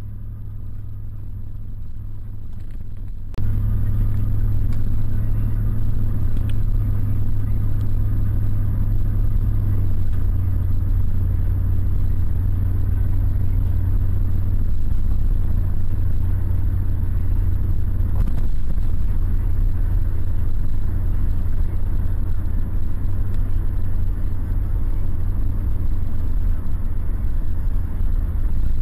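Car cabin noise while driving on a highway: a steady low rumble of engine and road, which steps up suddenly in loudness about three seconds in and then holds steady.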